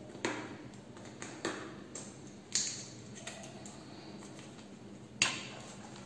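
An oats canister being opened by hand: a few short clicks and crinkles as its plastic lid is worked loose and handled, the sharpest about two and a half seconds in.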